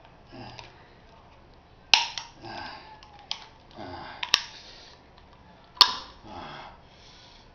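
Thin metal of an aerosol spray can being torn and crumpled by hand: several sharp cracks, the loudest about two, four and six seconds in, each with a short burst of crinkling metal.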